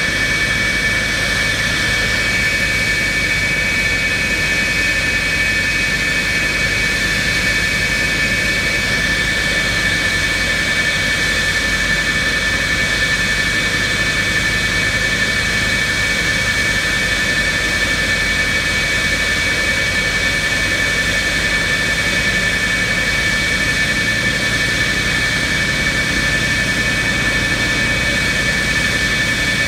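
McDonnell Douglas F-4E Phantom II's twin General Electric J79 turbojets idling on the ground: a steady high whine over an even rush of jet noise, unchanging throughout.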